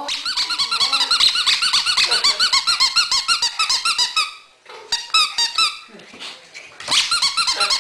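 A pug squealing in rapid, high-pitched squeaks, about ten a second, in excitement after a bath. The squeaks break off briefly just over four seconds in, come more sparsely for a while, then pick up again near the end.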